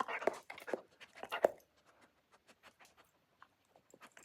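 A dog sniffing and nosing at a small model airplane and its box: a quick run of light clicks and rustles, the loudest a single knock about a second and a half in, then only a few faint ticks.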